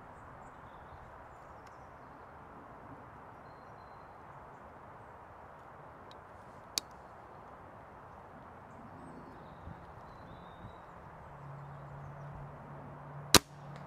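Steady breeze noise with a faint click about seven seconds in. Near the end comes a single sharp crack: a spring-piston air rifle firing.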